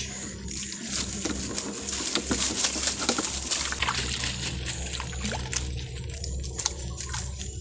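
Water splashing and dripping as live fish are shaken out of a fishing net into a water-filled tank, the fish thrashing at the surface in quick irregular splashes.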